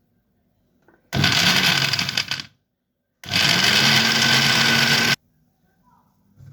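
Moulinex electric blender run in two short pulses, about a second and a half and then about two seconds, its motor spinning up each time while chopping lemon and garlic.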